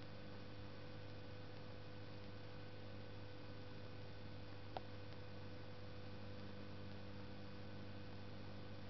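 Steady low electrical hum over faint hiss, with a single short click about halfway through.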